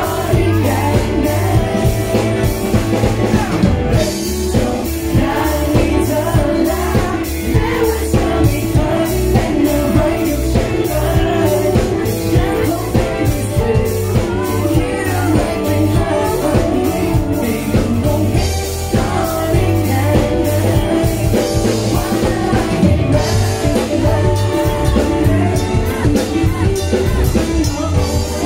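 Male singer singing live into a handheld microphone through a PA system, over a pop-rock backing with a steady drum beat and bass.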